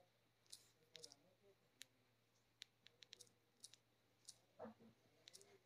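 Faint, irregular clicks of taps on a smartphone's on-screen number keypad as digits are typed in, roughly two a second, with a quicker run of them around the middle.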